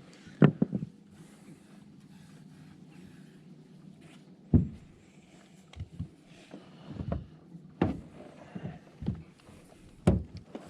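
Scattered knocks and clunks of gear and movement against a small fishing boat's hull, the loudest about half a second in and again near the middle, over a faint steady hum.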